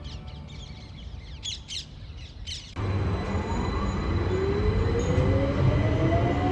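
Birds calling a few times with short chirps, then a sudden change to a London Underground train carriage running: a loud rumble with a motor whine rising steadily in pitch as the train picks up speed.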